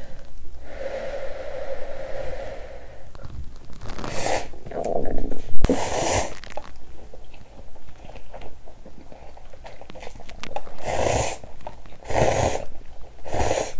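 Slurping broth from a cup of instant noodles in a series of loud sips, three in quick succession near the end, with a sharp click in the middle.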